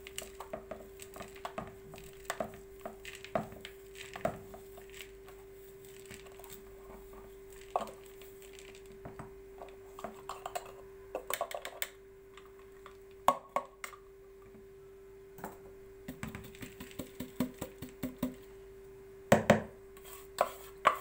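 Ground walnuts and almonds being scraped with a wooden spoon out of a plastic grinder bowl into a plastic mixing bowl: a run of light scrapes and clicks, with a few sharper knocks, the loudest near the end, over a steady faint hum.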